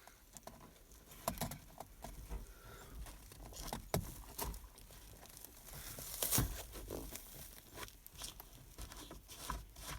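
Scattered small clicks and rustles of hands working with wire and a crimp-on connector, test-fitting the connection, with a sharper click about six seconds in.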